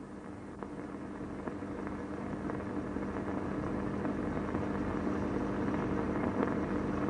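A steady engine-like drone with two constant low tones, growing gradually louder, dotted with faint scattered clicks.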